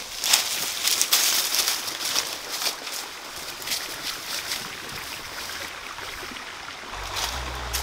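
Bare feet crunching and rustling through dry fallen leaves and grass, a quick run of crackles that thins out as the steps move away.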